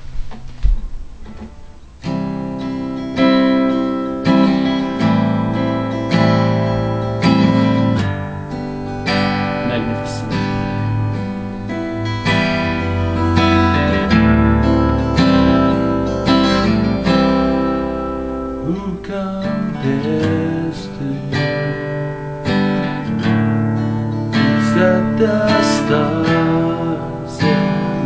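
Acoustic guitar strummed in a regular rhythm, starting about two seconds in after a single knock.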